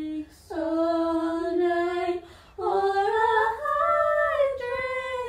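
A female voice singing long held notes that slide in pitch, with no instruments, in three phrases broken by short pauses about half a second in and again past two seconds.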